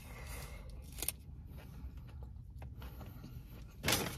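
Someone eating in a parked car's cabin: a low steady hum, a small click about a second in, and a short rustle of the food wrapper near the end.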